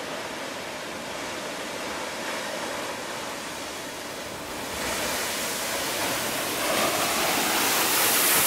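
Large ocean waves breaking against black volcanic rocks: a continuous rushing of surf and spray. It grows louder about five seconds in, and louder and hissier again near the end as a big wave crashes and throws spray up over the rocks.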